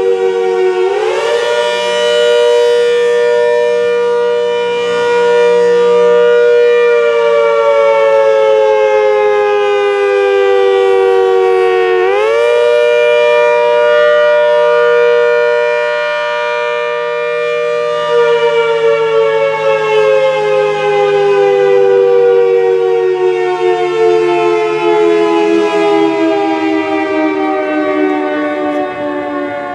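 ACA Hurricane 130 MKII outdoor warning siren sounding the wavering Attack signal. Its two-note chord rises quickly about a second in, holds for several seconds and then slowly falls. It rises again about twelve seconds in and falls slowly once more.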